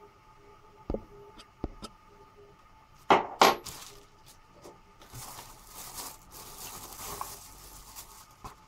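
A small metal drill accessory clinks twice as it is set down on a desk, a little after three seconds in, after two lighter knocks. Then comes a few seconds of crackling from plastic packaging being handled.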